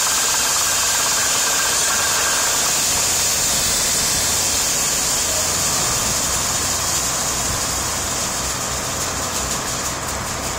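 Coiled-tubing drilling motor on a surface function test: drilling fluid is pumped through it and jets out around the bit into a tank as a loud, steady hiss over the low drone of the pumping engines. The hiss eases slightly near the end.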